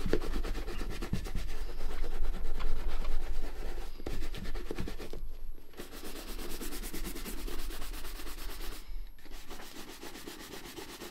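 A stiff shoe brush scrubbed rapidly back and forth over the black Klondike leather of a Red Wing 9874 work boot, working in leather cream: a continuous rasping rub that breaks off briefly twice.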